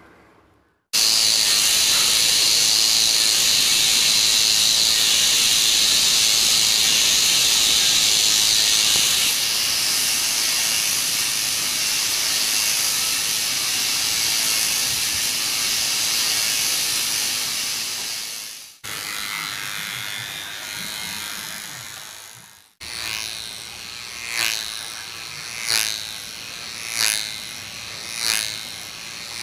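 Small electric motor and propeller of a battery toy airplane, whirring loud and high-pitched. Later the whir swells and fades about every second and a quarter as the plane circles on its string.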